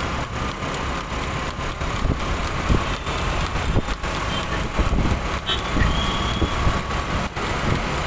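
Busy city road traffic: engines and tyres of cars, trucks and motorbikes running close by, a steady dense rumble with scattered clicks and knocks.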